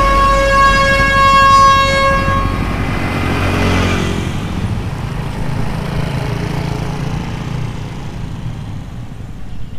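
Coal dump truck's ship-style air horn (klakson kapal laut) held on one steady note, cutting off about two and a half seconds in. The truck then goes past with a rush of tyre and engine noise near the four-second mark, and its engine rumble fades toward the end.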